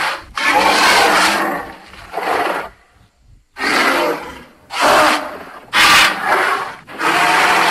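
A string of dinosaur roar and growl sound effects: about six short, rough calls in a row, each lasting a second or less.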